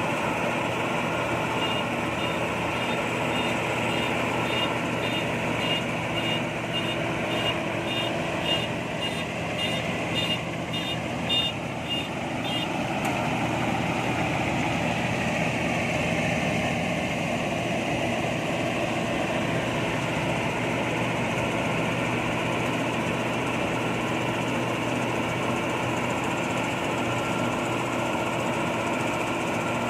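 Rice combine harvester's diesel engine running steadily, with a high-pitched reversing beeper sounding about twice a second for the first ten seconds or so, then stopping.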